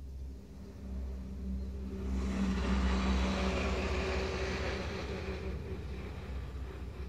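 An engine passing by: a low rumble that swells about two seconds in and fades away near the end.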